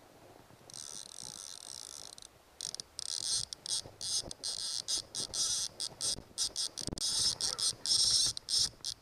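Fly reel's click-and-pawl ratchet buzzing high while a hooked salmon is played on a bent rod. It runs steadily for about a second and a half, stops briefly, then carries on in quick stop-start spurts.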